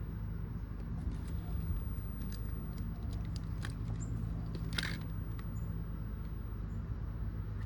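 Scattered light clicks and taps of small fuel-pump parts being handled and fitted together by hand, with a firmer click about five seconds in, over a steady low hum.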